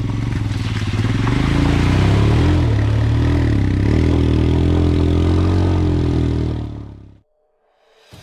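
Royal Enfield Himalayan motorcycle engine running, its pitch rising and falling as the throttle is worked. It fades out about seven seconds in.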